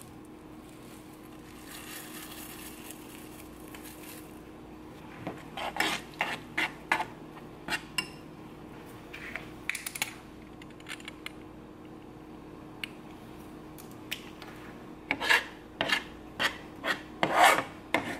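A utensil scraping and stirring oatmeal in a small saucepan, in short strokes, with a dense run of louder scrapes near the end. Early on, dry rolled oats pour into the empty pan with a soft hiss.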